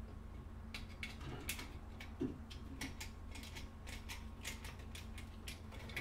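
Faint, irregular light clicks and taps as a wall switch and its wires are handled and knocked against a steel electrical box.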